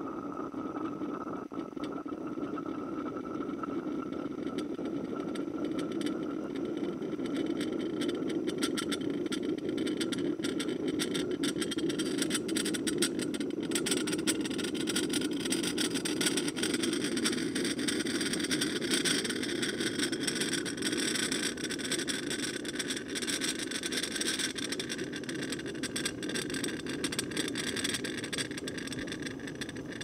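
Belgian balance siphon coffee maker brewing: boiling water and steam pushed from the heated copper boiler through the siphon tube into the glass bowl, bubbling and gurgling through the coffee grounds. It is a steady low rumble with hiss and crackling spits that grow busier after the first few seconds.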